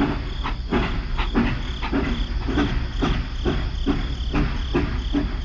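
Battery-powered toy steam train running on its plastic track: a steady motor hum with a rhythmic clacking chug about four times a second.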